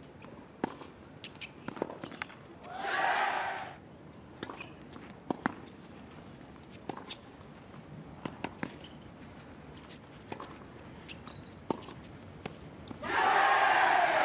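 Tennis rally sounds: sharp pops of a tennis ball struck by racquets and bouncing on a hard court, with shoe steps. Two loud bursts of about a second each break in, about three seconds in and near the end.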